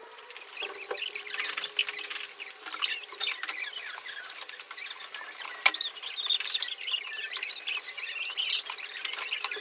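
Plastic packaging rustling and crinkling as it is handled, with a sharp click about halfway through.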